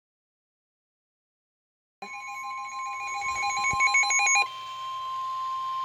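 About two seconds of dead silence, then Emergency Alert System alert tones. First comes a couple of seconds of rapidly warbling data-burst tones over a steady high tone, then the steady single alert tone alone, which heralds a severe thunderstorm warning.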